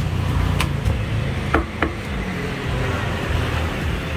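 A cleaver chopping through a roast chicken onto a thick wooden chopping block: about four sharp knocks in the first two seconds, over a steady low rumble of road traffic.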